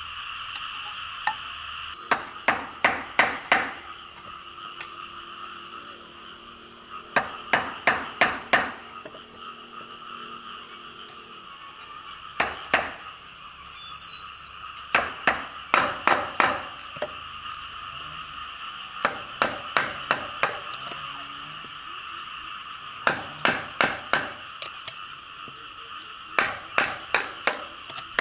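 Wooden mallet striking a wood chisel, chopping a mortise into a wooden board: sharp knocks in bursts of about five or six blows, roughly three or four a second, repeated several times, over a steady animal chorus.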